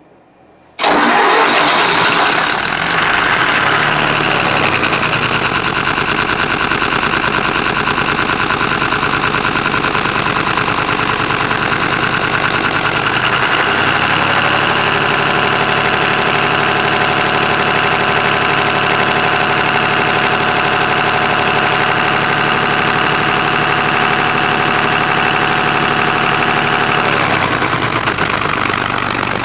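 Three-cylinder Lister diesel engine starting up about a second in, then running steadily with an even beat; its note shifts about halfway through and again near the end.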